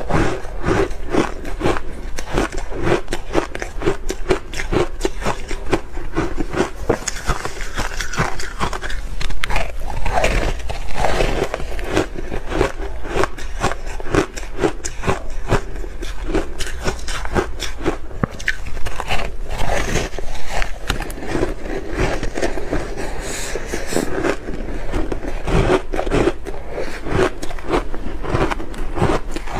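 Bar ice being bitten and chewed: a continuous run of sharp crunches and crackles.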